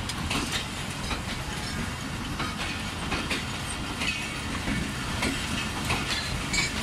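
Passenger coaches of a Pakistan Railways express train rolling past, with a steady low rumble and irregular clicks and clacks from the wheels on the track.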